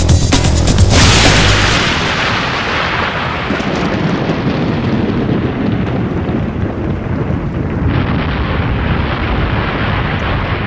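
Beat-driven music breaks off about a second in with a loud crash, which gives way to a long, steady, noisy rumble like an explosion sound effect. The rumble grows brighter again about eight seconds in.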